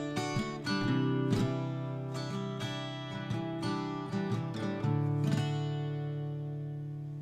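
Background music on acoustic guitar, picked and strummed notes, ending about five seconds in on a chord left to ring and fade away.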